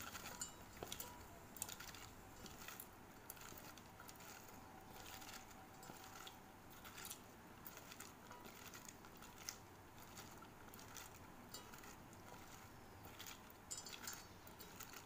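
Faint, irregular wet squishing and light clicking of sliced bitter gourd being squeezed and kneaded by hand with salt in a steel bowl, the salting that draws out the gourd's bitterness.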